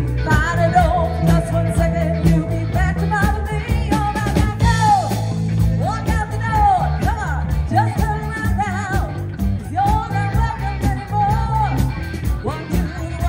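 Live rock cover band playing: a woman sings the lead melody over electric guitar, bass guitar and a drum kit.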